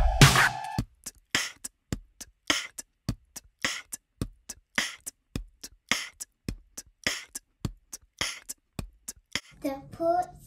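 Background music: a track with record scratching stops under a second in, leaving a sparse beat of crisp percussion hits, roughly one every half second with fainter ticks in between.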